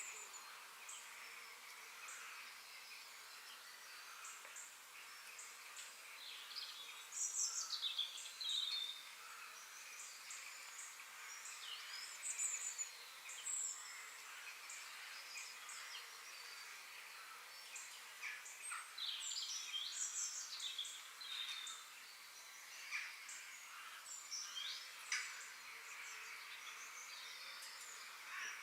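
Forest ambience: songbirds chirping and calling in quick short notes over a steady high hiss, with livelier bursts of calls a quarter and two-thirds of the way through.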